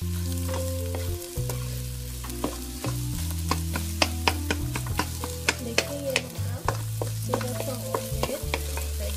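Egg sizzling in a nonstick frying pan as a wooden spatula stirs and breaks it up, with frequent sharp taps and scrapes of the spatula against the pan.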